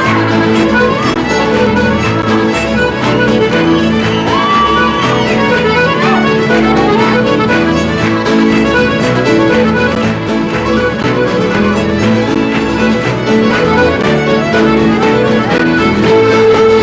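Scottish traditional instrumental tune played on accordion and fiddle, with a steady dance beat.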